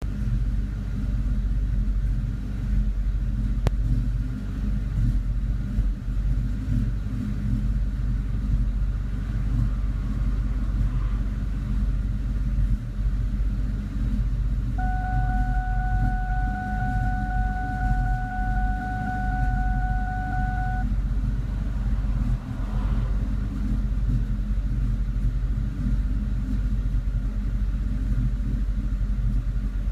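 2002 Ford Mustang GT's 4.6-litre V8 idling with a misfire, running uneven and rumbling; the owner finds it runs fine once driving under load and suspects a leak of some sort. A steady tone sounds for about six seconds midway.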